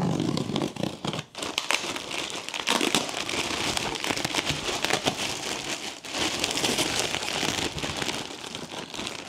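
Plastic packaging bag and air-cushion wrap crinkling and crackling as it is pulled open and handled inside a cardboard box.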